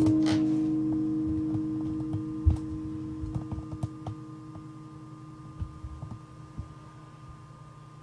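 A held keyboard chord ringing on and slowly fading away, with scattered light clicks and a soft thump about two and a half seconds in.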